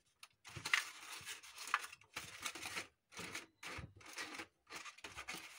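Cut plastic-bottle pieces being handled: a series of short crinkling, rustling noises with brief pauses between them.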